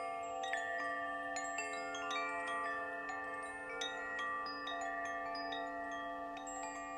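Wind chimes ringing: irregular, overlapping strikes of several tuned tones, each ringing on for a long time.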